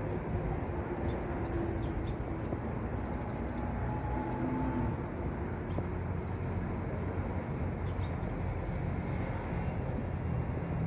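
Steady outdoor urban background noise: a low rumble of distant traffic with no distinct event standing out.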